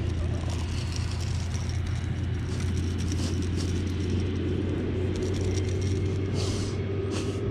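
Steady low mechanical hum, like a running engine, unchanging throughout, with a few faint ticks near the end.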